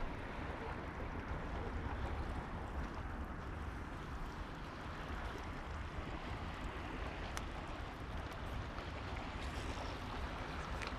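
Steady wash of sea water lapping at the shore, with wind buffeting the microphone.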